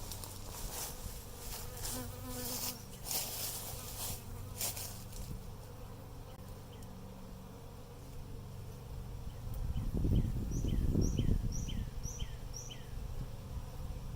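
Honeybees buzzing around an open hive, a steady hum throughout, with rustling in the first few seconds and a louder low rumble about ten seconds in.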